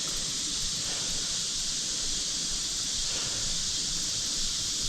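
Steady high-pitched chorus of insects, crickets or cicadas, with faint low rustling beneath it.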